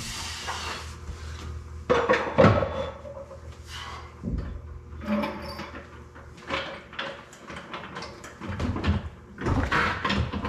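Scattered metal clunks and knocks from an Argo ATV's chain-drive running gear being worked with a long bar, as the axles are checked for bearing play. A brief hiss at the start.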